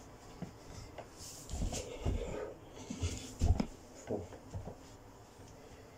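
A few dull thuds and rubbing on a carpeted floor from a person doing burpees, as feet and gloved hands come down, with hard breathing between.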